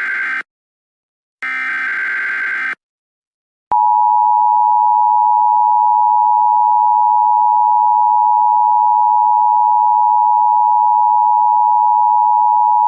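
Emergency Alert System SAME header data bursts, the end of one and then one more full burst about a second long. About four seconds in, the steady two-tone EAS attention signal begins, the loudest sound here. Together they herald an emergency broadcast alert.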